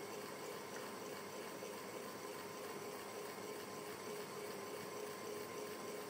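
Electric fan running steadily: an even hiss of moving air with a faint steady hum beneath it.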